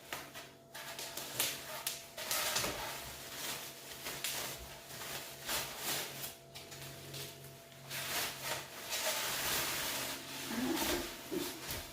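Irregular rustling and scraping of packaging and parts being handled while a flat-packed kitchen table is unpacked.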